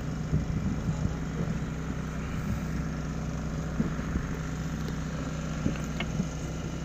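Steady low drone of a fishing boat's engine running, with a few light knocks on deck.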